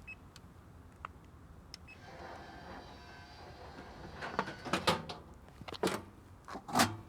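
A vending machine's motor whirring for about two seconds, then a run of knocks and clunks, loudest near the end.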